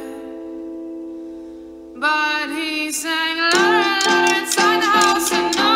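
Background song: a held chord fades for about two seconds, then singing comes back in over plucked strings.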